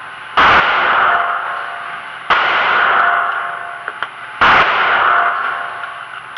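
Three handgun shots about two seconds apart, each ringing out in the echo of an indoor shooting range, with faint clicks between them.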